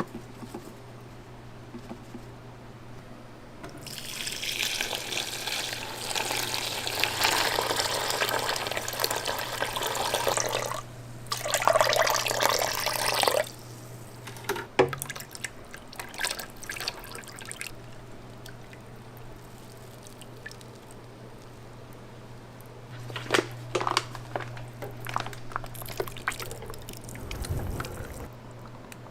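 Liquid pouring or running in two stretches, about seven seconds and then two seconds long, followed by scattered light clicks and knocks near the end, over a steady low hum.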